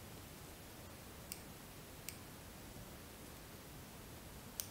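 Small fly-tying scissors clicking: three short, sharp clicks, the loudest near the end as the blades close at the fly, over faint hiss.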